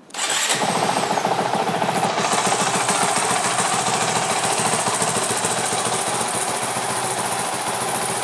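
2019 Honda CRF450L's single-cylinder four-stroke engine starting up at once and settling into a steady idle.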